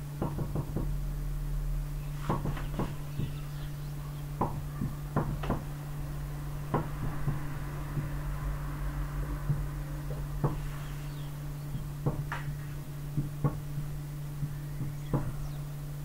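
Marker pen on a whiteboard while writing: irregular light taps and short strokes as letters and dots are put down. A steady low hum runs underneath.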